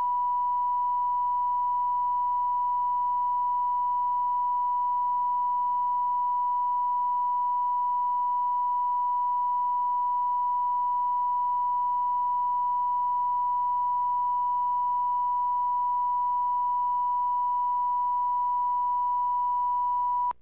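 A steady 1 kHz test tone on the blank-screen end of a Betamax videotape, one unbroken pitch over a faint hum, cutting off abruptly at the very end.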